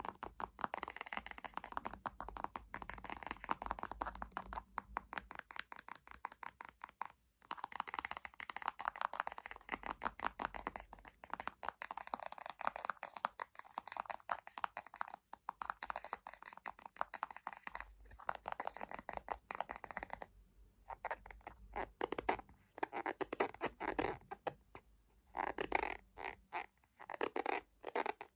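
Fingernails tapping and scratching on small cosmetic containers: fast flurries of light clicks with a scratchy texture, broken by two short pauses in the last third.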